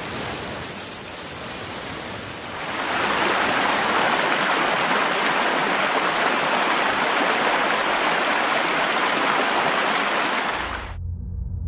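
Heavy rain with wind at first. From about three seconds in comes the loud, steady rushing of a muddy river in spate, a flood torrent. It cuts off abruptly near the end and gives way to a low rumble.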